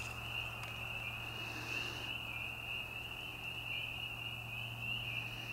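Steady, high-pitched night chorus of calling frogs and insects, with a low steady hum underneath.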